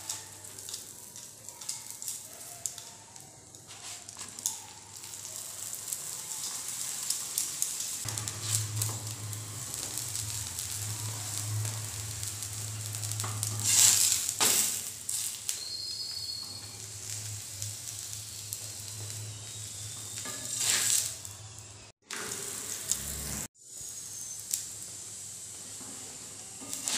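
Stuffed paratha frying in ghee on a hot tawa: a steady sizzle full of small crackles. It swells loudest about halfway through as the paratha is flipped over onto the griddle, and again briefly later on.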